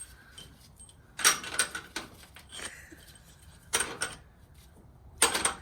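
Metal tools and engine parts clinking and clattering in three short bursts: about a second in, around four seconds, and near the end.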